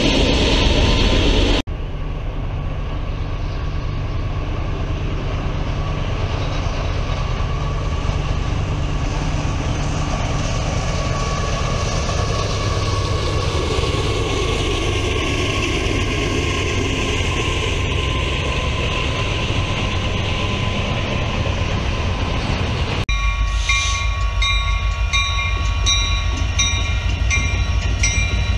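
Freight train passing: CSX diesel locomotives leading an intermodal train, with a steady rumble of engines and wheels. Near the end, after a cut, a ringing repeats a little under twice a second over continued train rumble.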